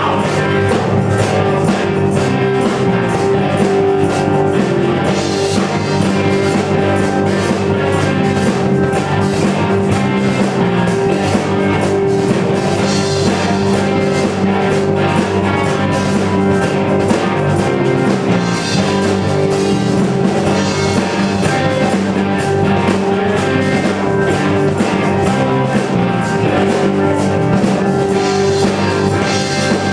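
Rock band playing, with guitar and drum kit keeping a steady beat.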